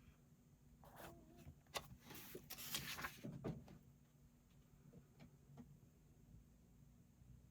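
A book page being turned: a short paper rustle with a few light clicks, between about one and four seconds in, over a faint steady hum.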